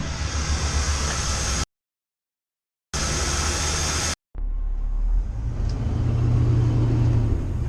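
RV engine running with road noise while driving, heard in short edited clips broken by two cuts to dead silence in the first half. The engine's low hum grows stronger past the middle.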